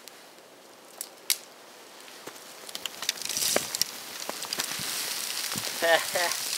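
Campfire crackling with sharp pops, turning into a steadier hiss and sizzle about three seconds in.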